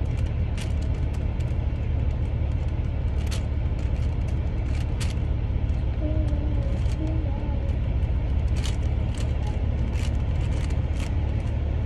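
A non-magnetic 5x5 puzzle cube being turned quickly in the hands, its plastic layers giving a scatter of sharp clicks, over a steady low hum.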